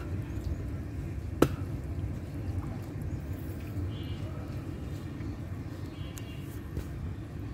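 Steady low rumble of outdoor background noise, with one sharp click about a second and a half in and two faint, short high chirps later on.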